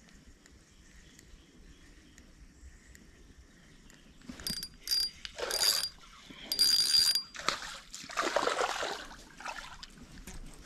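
Spinning reel clicking and whirring in several short bursts, starting about four seconds in, as a hooked fish is reeled in. The fish splashes at the surface near the end.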